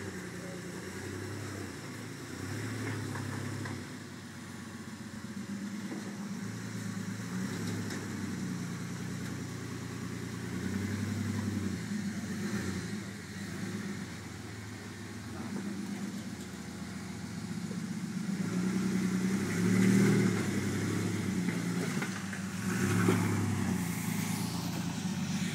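Rock crawler's engine working at low speed as the rig climbs over granite ledges, revving up and easing off in uneven surges. It is loudest and highest about twenty seconds in.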